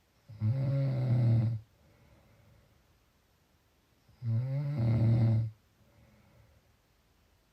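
Snoring: two loud, low, rattling snores about four seconds apart, each lasting just over a second, with faint breathing between them.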